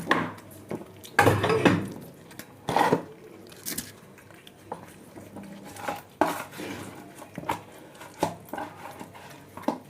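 Cat food bowls clinking and clattering in irregular knocks, loudest in a cluster between about one and three seconds in, with smaller clinks scattered after.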